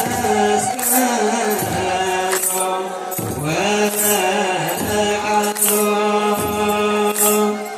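Ethiopian Orthodox wereb: a group of voices chanting a hymn in long held notes that bend and slide between pitches, with short breaks between phrases. A high shimmering sound comes in at a regular beat about every second and a half.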